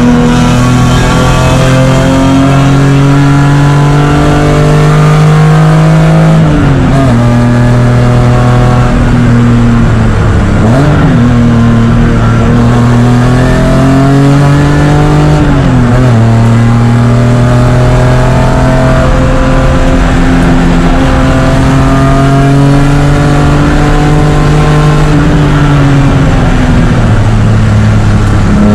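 BMW E36 race car engine at racing throttle, heard from inside the cockpit: the revs climb slowly through the gears, dip sharply about six seconds in and again around sixteen seconds and near the end, with a quick throttle blip near eleven seconds.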